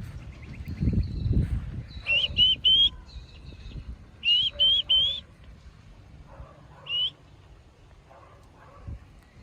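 A bird calling: two groups of three short, rising whistled notes, then a single note about seven seconds in. A low rumble sounds in the first two seconds.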